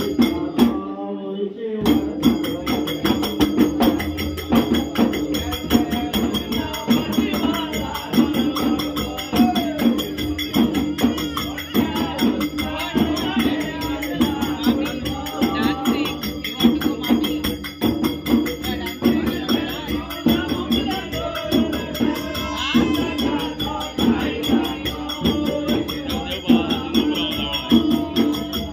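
Goan folk music: several ghumot clay-pot drums beaten together in a fast, dense rhythm, with voices singing over them. The music starts about two seconds in.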